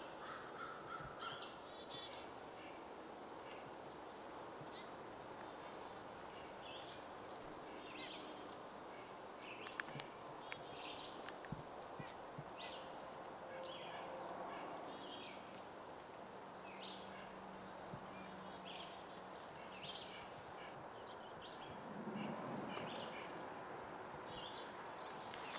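Birds calling: many short, high chirps scattered throughout, with a lower call near the end.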